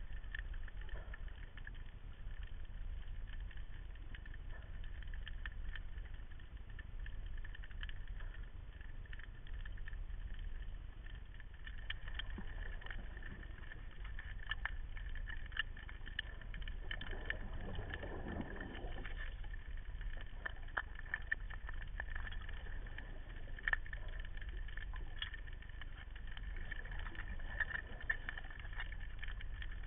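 Muffled underwater sound picked up through a camera's waterproof housing: a steady low rumble with a faint steady whine, scattered clicks, and a short rush of noise about 17 seconds in.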